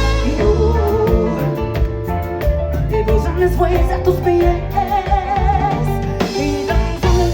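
Live Latin pop band playing a song with a singer's voice over a steady bass and drum beat.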